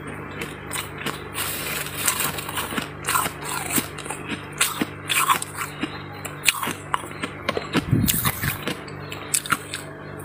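Close-up crunching of powdery freezer frost ice being bitten and chewed: a quick, irregular run of crisp crunches with a faint steady low hum underneath. A heavier, dull low thump comes about eight seconds in.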